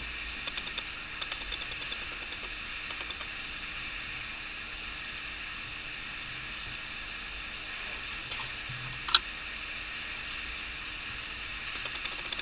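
Steady hiss of recording noise, with a few faint light clicks and one sharp tap about nine seconds in, from hands handling steel needles on a crocheted fabric needle holder.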